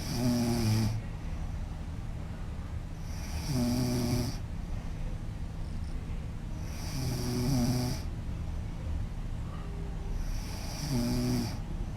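A woman snoring loudly in her sleep: four snores, one about every three and a half seconds, each lasting about a second.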